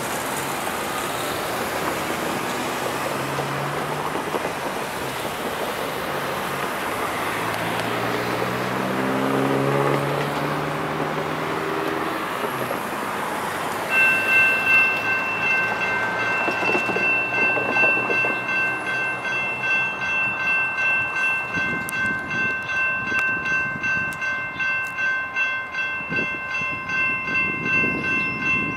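Road traffic passing, with one vehicle's engine rising in pitch as it accelerates. About halfway through, a railroad grade crossing's warning bell starts ringing with a steady, pulsing tone and keeps on, the crossing warning for an approaching train.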